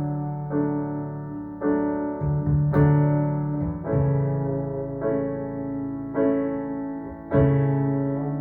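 Solo piano passage from a pop ballad, chords struck about once a second and left to ring out, played back through a hi-fi stereo system.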